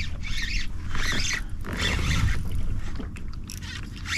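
Water splashing and sloshing around a kayak in uneven bursts about once a second, over a low steady rumble.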